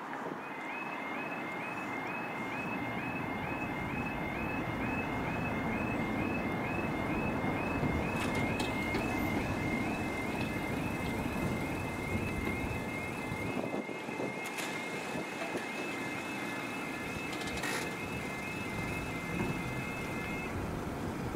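Level crossing audible warning alarm sounding: a high warbling tone repeating about three times a second over steady background noise, stopping near the end.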